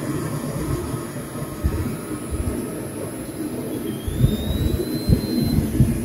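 NeuMaster NRT0036 3.6-volt cordless rotary tool running at low speed, spinning a chucked stainless extruder nozzle against a hand-held microfiber cloth to buff it. The cloth rubs with an uneven low rumble and scattered thumps, and a faint high whine rises slightly about four seconds in.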